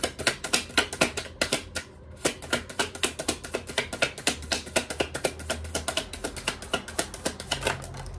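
Tarot deck being shuffled by hand: a rapid, even run of papery card flicks, about six or seven a second, with a short break about two seconds in.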